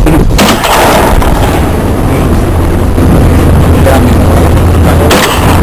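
Two gunshots about five seconds apart, loud and sharp, over a constant low rumble.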